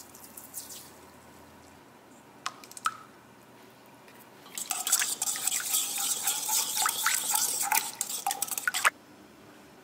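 Two light clinks, then about four seconds of brisk stirring in a mixing bowl, a utensil scraping and clinking against the bowl's side, which stops abruptly.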